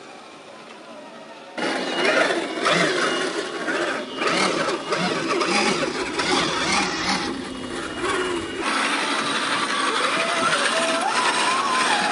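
Electric motors and geared drivetrains of 1/10 scale RC crawlers whining under load as they climb a loose dirt hill, tyres spinning and spraying dirt and gravel. The sound starts about a second and a half in. Near the end a second truck's motor whine rises in pitch as it climbs.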